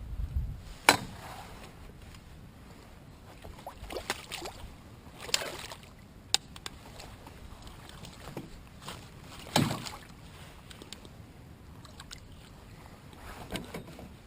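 Scattered knocks and bumps in an aluminium-free wooden-and-fibreglass canoe: a sharp knock about a second in, a few more in the middle, and a louder thump about two-thirds of the way through, over a faint steady background.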